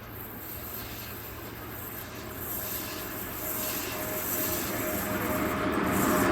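EP1 electric locomotive hauling a passenger train on approach, its running noise on the rails growing steadily louder, with a thin steady high tone coming in about halfway through.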